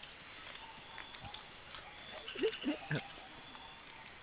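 Steady shrill chorus of night insects such as crickets, with four short, low, falling croak-like calls in quick succession about two and a half seconds in.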